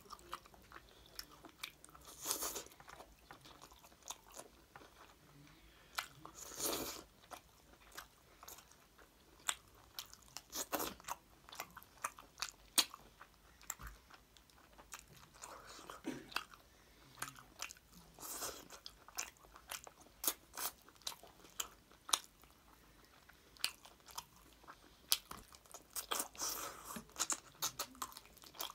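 A person chewing mouthfuls of chicken curry and rice eaten by hand: many irregular wet clicks and smacks of the mouth, with a few longer, louder stretches.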